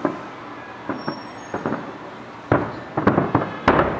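Fireworks shells bursting at a distance: a string of sharp booms with echo. A few lighter pops come in the first half, then a heavier cluster of bangs in the last second and a half.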